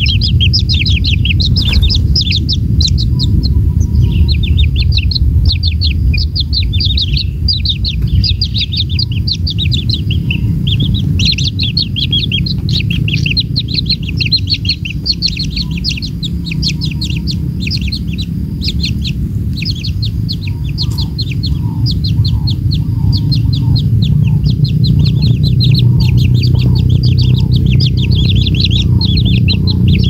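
Kingfisher nestlings begging: a dense, unbroken stream of rapid, high-pitched chirps, the sign of hungry chicks calling for food. A steady low rumble runs underneath.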